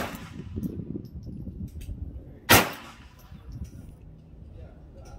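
Ruger Mark IV Tactical .22 LR pistol firing single shots: the tail of one sharp crack right at the start, and another about two and a half seconds in.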